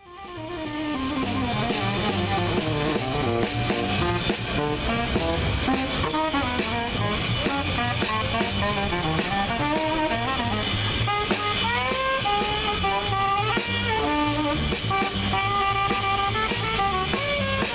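Jazz music with a plucked upright bass, drum kit and a saxophone melody, fading in over the first second.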